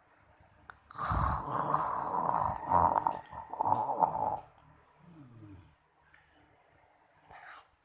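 A person snoring: one long, loud rattling snore beginning about a second in and lasting some three and a half seconds, then a much fainter short breath, with the next snore starting at the very end.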